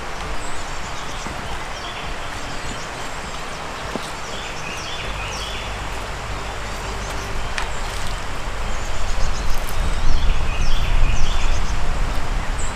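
Small birds singing in repeated short chirping phrases in woodland over a steady hiss. From about five seconds in, a low wind rumble on the microphone grows louder and gustier.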